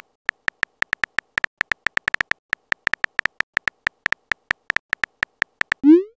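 Typing sound effect for a chat app: short beeps at a steady pitch, about five a second, one per letter as a message is typed. Near the end there is a quick rising swoosh as the message is sent.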